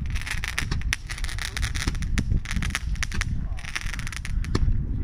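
Cialfir Krakatoa Roman candle stars crackling in the air: many sharp, irregular crackles over low background noise.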